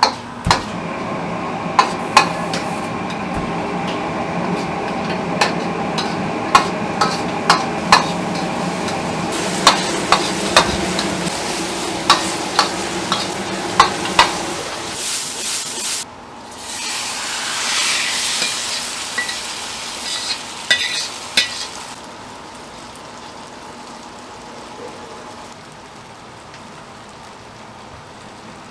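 Food frying in a pan and being stirred with a metal utensil that clacks sharply against the pan over a steady sizzle. About 16 seconds in there is a louder surge of sizzling hiss lasting several seconds, then the sizzle settles lower.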